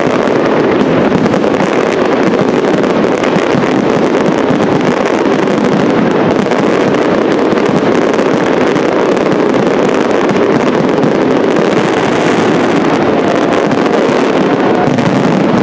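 Dense aerial fireworks barrage, many shells bursting in quick succession so that the bangs and crackles run together into a steady roar.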